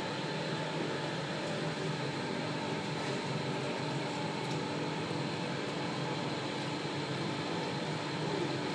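Steady room hum: an even rush of machine noise with a few faint steady tones running through it.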